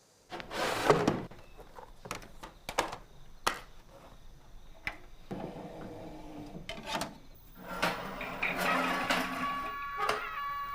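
Scattered clicks and knocks of bowls and chopsticks being handled at a meal, with a short rustling clatter about half a second in. Near the end, a held musical tone comes in.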